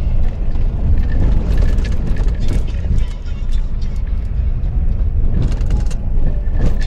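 Jeep Renegade driving slowly over a rough dirt track, heard from inside the cabin: a steady low rumble of engine and tyres with frequent knocks and rattles from the bumpy surface.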